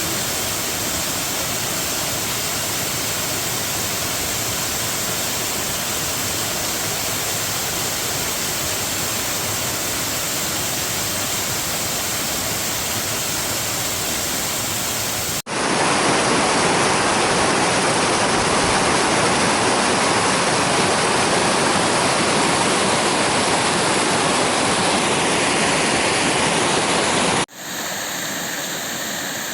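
Heavy rain falling as a steady hiss. It cuts abruptly about halfway to a louder, fuller downpour, then near the end to a quieter stretch with a different tone.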